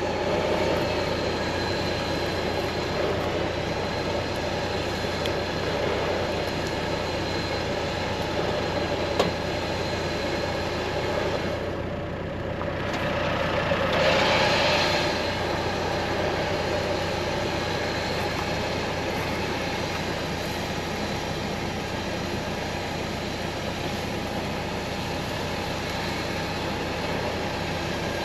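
Four-wheel drive's engine running steadily, with a brief drop and then a swell about halfway through.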